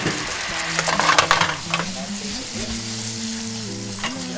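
Bananas Foster sauce (sliced bananas in brown-sugar caramel with cream) sizzling and bubbling in a frying pan as it is stirred and tossed. There is a louder spell of stirring about a second in.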